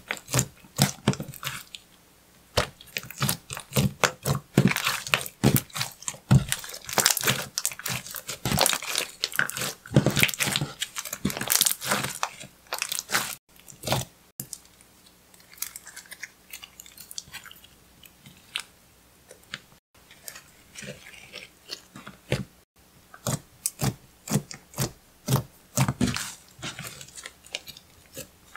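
Slime being squeezed, folded and stretched by hand, giving a rapid, irregular run of sticky clicks and pops. The clicking thins out in the middle and gets busier again near the end.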